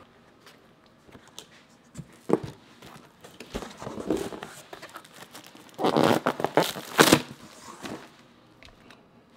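A cardboard box being opened and the plastic wrapping around the tail light inside crinkling and rustling. The handling is louder for a stretch about six to seven seconds in.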